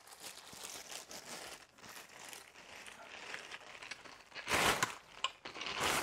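Clear plastic packaging bags crinkling as wrapped parts are handled and unwrapped. There are two louder rustles, one about four and a half seconds in and one near the end.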